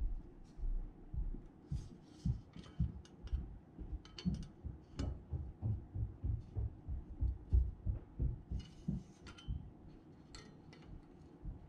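Hand fluting pliers squeezed again and again on the thin aluminium flanges of an RV-10 stabilizer rib, crimping flutes to take the bow out of it: a run of dull thuds, two or three a second, with sharper metallic clicks and rattles of the rib now and then.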